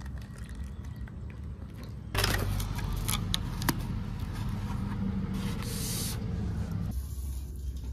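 Styrofoam takeaway food box being opened and handled on a wooden table: a run of clicks and scraping starting about two seconds in, with a brief hiss in the middle.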